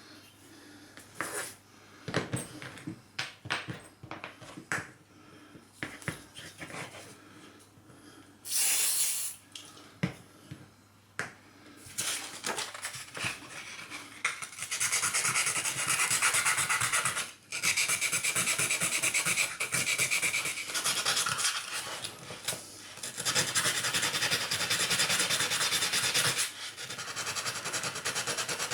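Steel tip of a small screwdriver being abraded by hand to clean it, heard as fast back-and-forth scraping strokes that run steadily through the second half. Scattered taps and clicks of the tools being handled come before it.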